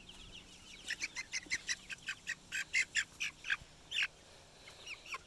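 Small birds chirping: a quick run of short, high chirps, several a second, from about a second in until about four seconds in, with a few fainter chirps around them.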